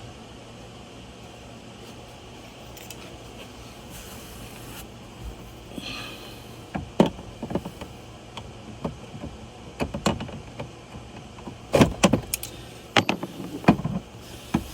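Hose clamp pliers working on plastic dash parts: a run of sharp clicks and knocks starting about halfway through, busiest and loudest near the end, over a steady low hum.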